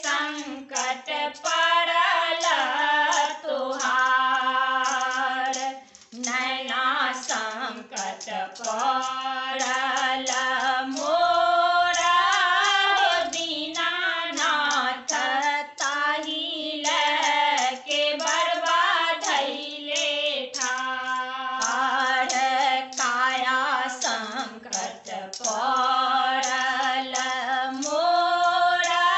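Three women singing a Maithili Chhath geet (devotional folk song) together, their voices moving in long held, wavering lines.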